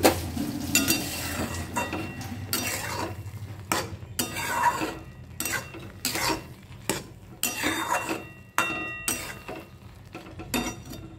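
A spatula stirring and scraping semolina upma around a kadhai: a quick, uneven run of scraping strokes against the pan with a few metallic clinks, as the semolina, just added to boiling water, thickens.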